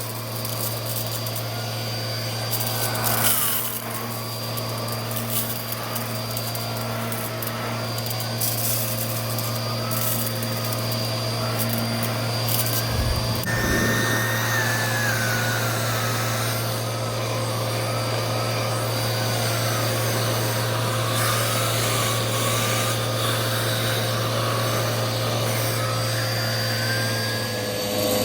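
Vacuum cleaner running steadily while picking up spilled rice from a rug. Over its motor hum a whistling tone wavers up and down, and grains click and rattle as they are sucked in, mostly in the first half.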